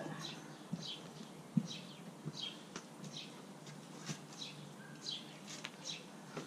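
Small birds chirping over and over, short falling chirps about two a second, with a few soft low thumps among them.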